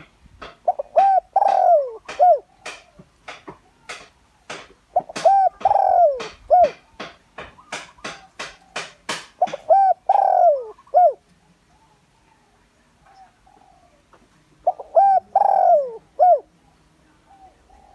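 Spotted dove cooing, a decoy call: four repeated phrases of low hooting notes, each phrase with a longer note that falls in pitch, spaced a few seconds apart. Sharp clicks sound between the phrases in the first half.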